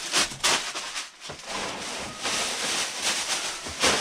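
Plastic bread bags crinkling and rustling as old bread is unwrapped by hand, in several bursts, loudest near the end.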